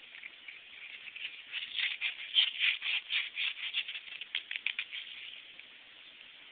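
A quick, irregular run of dry scratching and rattling clicks as a cat grapples with a hosta flower stalk on concrete, loudest in the middle and dying away about five seconds in.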